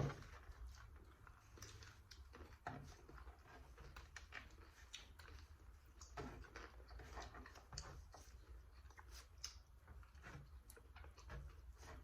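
Faint eating sounds: scattered small clicks and taps of chewing and of utensils and food handled on plates, over a low steady room hum.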